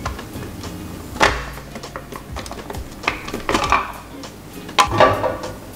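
Clear plastic pouring shield of a KitchenAid stand mixer being handled and lifted off, knocking and clattering against the stainless-steel bowl and mixer head in a few short bursts: a sharp knock about a second in, then clusters of clatter past the middle and near the end.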